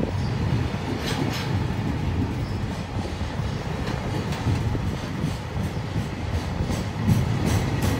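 Loaded container wagons of a freight train rolling past at low speed: a steady low rumble, with the wheels clicking over rail joints in pairs, most clearly about a second in and again near the end.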